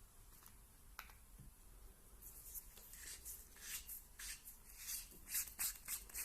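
Faint handling noises: a single click about a second in, then from about two seconds on a run of short scratchy rustles and clicks, several a second, as hands handle small objects and packaging.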